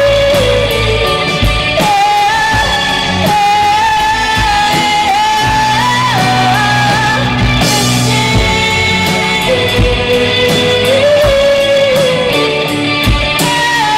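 Live rock band playing: a singer holds long sung notes over electric guitars, bass guitar, keyboard and drums with cymbals.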